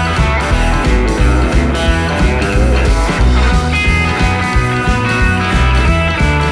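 Rock music with electric guitar, bass and drums, a steady pulsing bass line under it.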